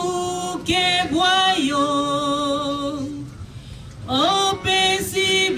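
A woman singing slowly into a microphone, holding long notes; she breaks off for about a second near the middle and then comes back in.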